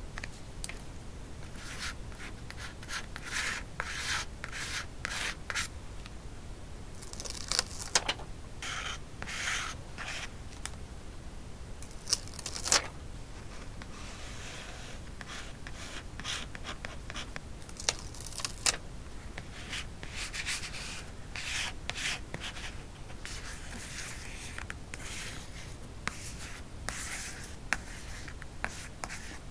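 Close-miked paper crafting: sticker paper and cut-outs handled and rubbed down onto a journal page, in short bursts of dry paper rustling and rubbing. A few sharp clicks stand out along the way.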